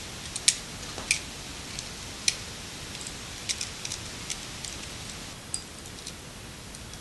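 Scattered light clicks and taps from handling a duplex electrical receptacle, as black wires are fitted to its brass terminals and a screwdriver works on it. There are about a dozen uneven clicks over a steady low hiss.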